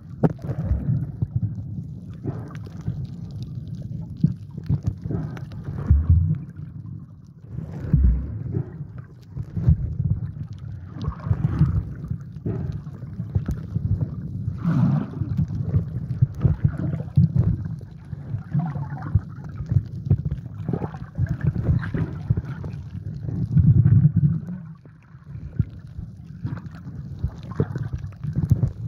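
Muffled underwater sound from a camera held below the surface while snorkelling: a steady low rumble of water moving against the microphone, with irregular clicks and crackles and a few louder surges, the biggest about 24 seconds in.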